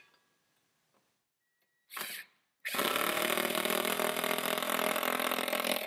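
Cordless drill driving a 5/16-inch lag bolt through a steel bracket into the wooden wall. There is a short burst about two seconds in, then the motor runs steadily for about three seconds.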